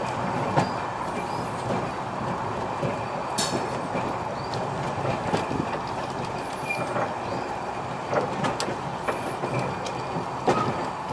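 Train running along the line: a steady rumble of wheels on rail with scattered clicks and knocks.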